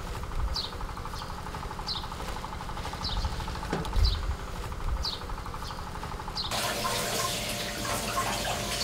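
A short descending call repeats about once a second over a steady hum, like a bird calling. About six and a half seconds in, an even rush of running water starts, like a tap left running.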